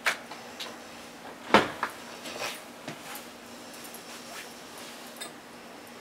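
A few sharp knocks and thuds, the loudest about a second and a half in, over a faint steady hum.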